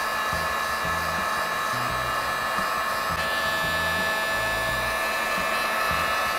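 Genesis electric heat gun running steadily, blowing hot air onto leftover emblem adhesive to soften it: an even whine with a rushing hiss.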